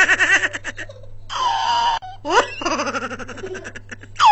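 High-pitched giggling laughter in quick pulses, broken by a held squeal and ending in a sharp rising whoop.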